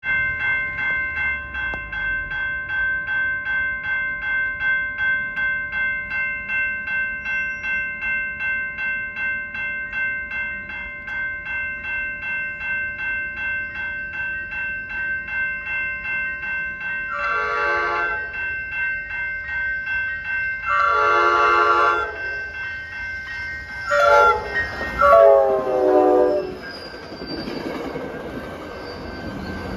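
Railroad grade-crossing bell ringing about twice a second as a Coaster commuter train approaches, then the locomotive's horn sounds the crossing signal: long, long, short, long, the last blast dropping in pitch as the train reaches the crossing. The train's wheels and cars are then heard going by.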